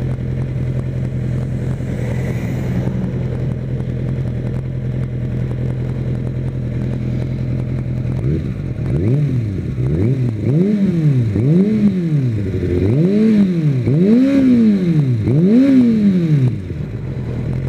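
Kawasaki Ninja ZX-6R's inline-four engine idling steadily, then revved in a string of about seven quick throttle blips from about halfway through, each rising and falling in pitch and climbing higher than the last, before it settles back to idle near the end.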